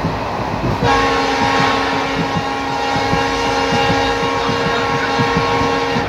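Train horn sounding one long, steady blast of several notes at once, starting about a second in and cutting off just before the end, over the rumble and wheel clicks of the moving train.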